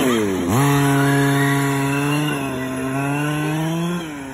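Radio-controlled car's motor running hard with a chainsaw-like buzz. Its pitch dips low and jumps back up about half a second in, holds nearly steady, then drops near the end.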